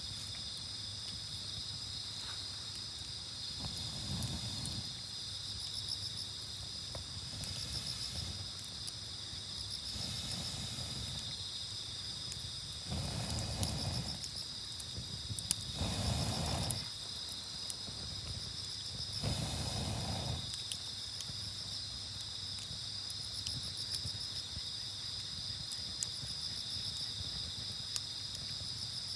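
Night insects trill steadily in a high, continuous chorus. A few faint clicks come through, and several soft rushing swells rise midway.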